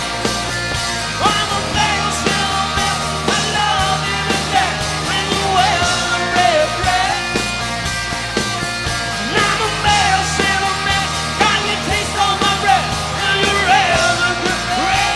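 Rock band playing live, with electric guitars, bass and drums, and a lead singer's voice wavering over them.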